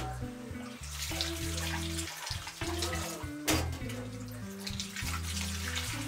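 Water running from a kitchen tap, with a sharp knock about three and a half seconds in, over background music with sustained low notes.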